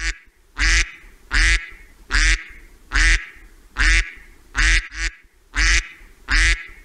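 A duck quacking in a steady, regular series of loud quacks, about three every two seconds.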